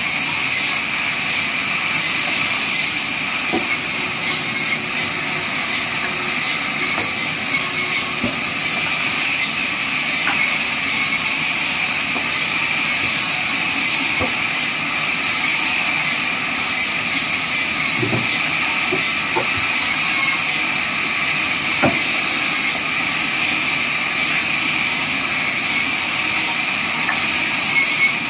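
Large sawmill band saw running and ripping through a hand-fed wood block: a steady high hissing rasp of the blade in the wood, with a few faint knocks.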